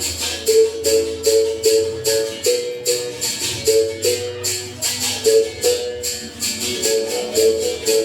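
Berimbau playing a steady capoeira rhythm: the string is struck about three times a second, the note moving between two pitches, with a caxixi rattle shaking on each stroke.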